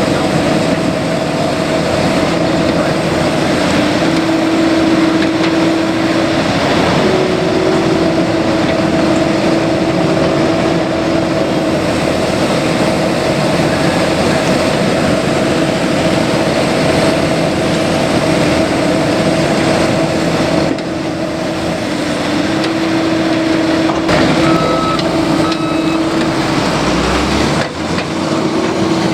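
Cat 308E excavator's diesel engine and hydraulics running while digging: a loud, steady drone with a whine that steps up a little in pitch now and then.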